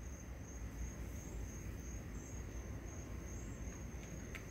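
Crickets chirping in a steady, high, continuous trill over a low background hum, with a couple of faint ticks near the end.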